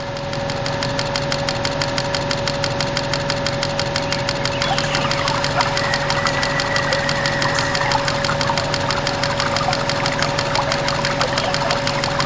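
Small electric motor of a DIY mini borewell and pump rig running steadily at constant speed, with an even hum and a rapid, fine buzzing rhythm.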